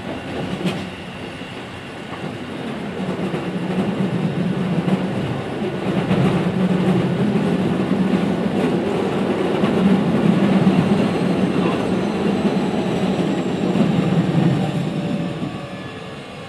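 Keikyu 1500 series electric train car, refitted with a Mitsubishi VVVF inverter, running along the line as heard on board: a steady rumble of wheels on rail with rail-joint clatter. It grows louder over the first dozen seconds and eases off near the end.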